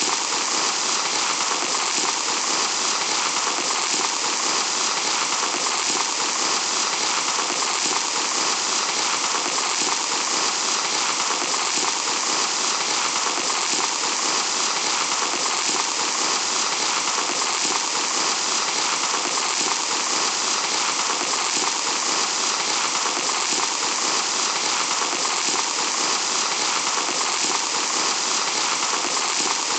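Steady, even hiss of fine sand pouring and trickling, unbroken throughout.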